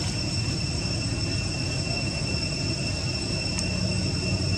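Steady insect drone, two thin unchanging high tones, over a low steady rumble of background noise.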